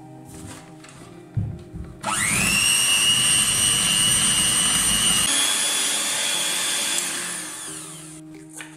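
Electric hand mixer starts about two seconds in, its motor whine rising quickly to a steady pitch as the beaters work a thick batter of egg yolks, flour and yeasted milk. Its pitch steps up a little about halfway through, and the sound then dies away near the end.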